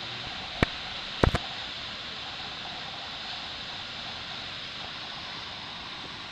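Wailua Falls on Kauai rushing: a steady, even hiss of falling water. A single sharp click comes a little over half a second in, and a short cluster of clicks follows just after a second in.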